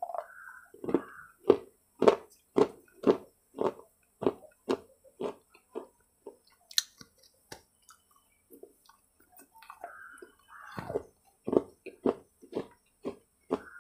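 A person chewing close to a clip-on microphone, with crunching chews at a steady pace of about two a second. The chewing slows to a few scattered sounds in the middle, then picks up again.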